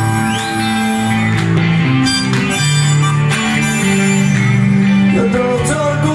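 Live rock band playing loudly: distorted electric guitars, bass and drums, with a harmonica cupped against a microphone.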